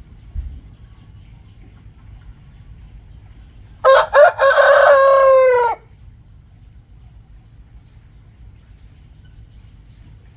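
A rooster crows once, about two seconds long: two short clipped notes, then a long drawn-out note that falls in pitch at the end. A brief low thump comes near the start.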